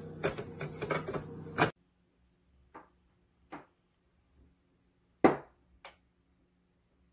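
Light clicks and taps over a steady background hiss. The hiss cuts off abruptly, leaving a faint low hum and a few sparse, sharp clicks, one much louder than the rest.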